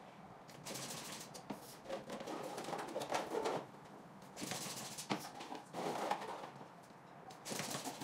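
Double-action hand balloon pump strokes inflating small latex balloons: a series of short rushes of air, with the balloons handled between strokes.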